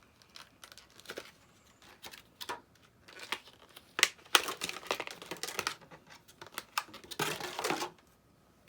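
Crinkly lure packaging rustling in irregular bursts as a swimbait is handled and opened, loudest about four to six seconds in and again near the end.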